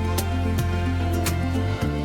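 Gentle instrumental background music with a plucked guitar-like melody over a steady bass.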